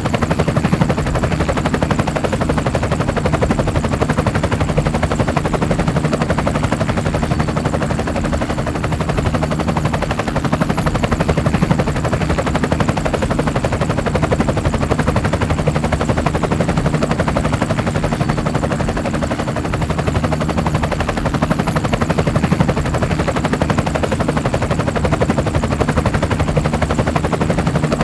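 Engine of a small off-road vehicle running steadily as it drives a rough dirt track, a fast rattling chug.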